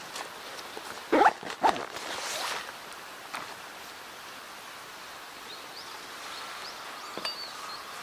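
Steady flow of a shallow, stony river with faint high bird chirps later on. About a second in come two short, loud sounds that slide in pitch, with a couple of faint clicks afterwards.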